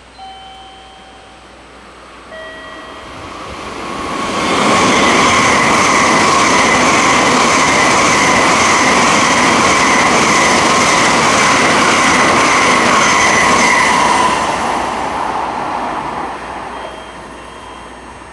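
Tokaido Shinkansen bullet train running through a station at speed without stopping. The rushing noise builds over about two seconds, stays loud for about ten seconds with a steady high whine in it, then fades away.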